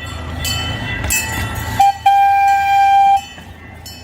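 Miniature amusement-park train running with a low rumble, its horn giving a short toot and then a steady blast of about a second.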